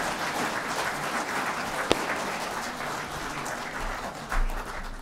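Audience applause in a hall, thinning out toward the end, with one sharp click about two seconds in.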